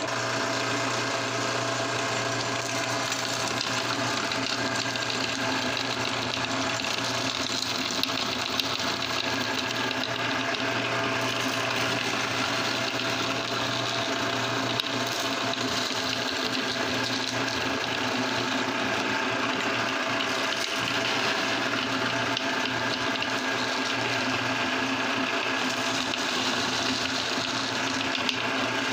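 Motor-driven meat grinder running steadily as it grinds hard-coated mango candies into crumbs: an even mechanical hum with a few small clicks.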